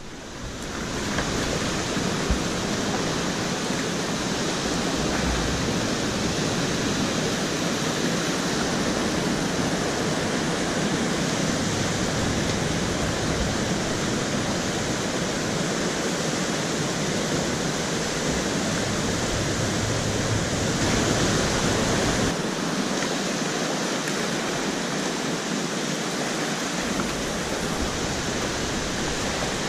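Whitewater rapids rushing steadily close to the water, a river running high on a 10 cumec dam release.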